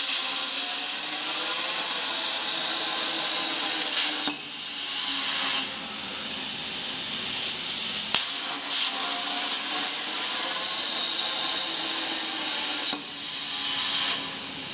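Plasma cutting torch hissing with a high whine as it cuts a steel pipe, the sound dipping briefly about four seconds in and again near the end.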